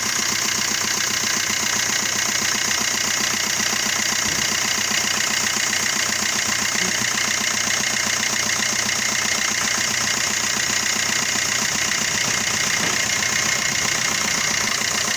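Maruti Ertiga engine idling steadily with the air conditioning switched on, an even fast pulse under a constant hiss, while the system draws in R134a refrigerant during charging.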